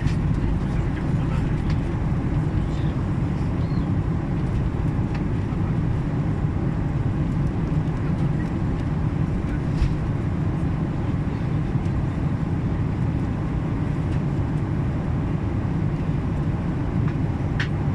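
Steady low rumble of an airliner's cabin in flight, engine and airflow noise, as the plane descends toward landing.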